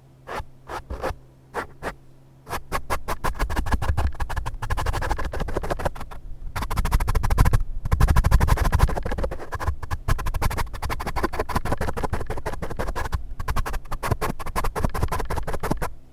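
Rapid scratching strokes: a few single strokes first, then a fast, dense run of them from about two and a half seconds in.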